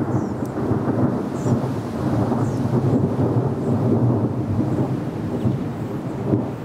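Thunder rolling close by: a continuous low rumble that swells and eases for several seconds, with no sharp crack.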